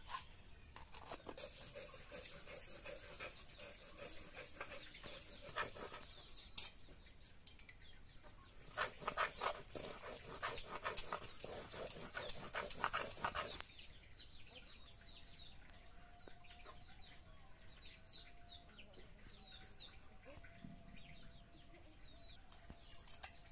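Hand-held grinding stone rubbed back and forth on a flat stone slab (sil-nora), grinding cumin seeds into chilli paste: quick rhythmic scraping strokes, loudest for a few seconds near the middle. In the second half, short high chirps repeat over a thin wavering tone.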